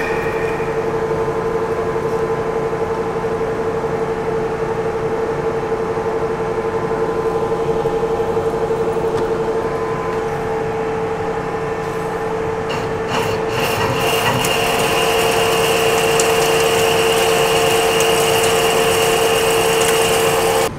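Metal lathe taking a heavy roughing cut on a 10-inch bar of 1045 steel: the steady hum and tone of the spindle and cut, with chips coming off the work. About two-thirds of the way through a higher whine joins in and the cut gets a little louder.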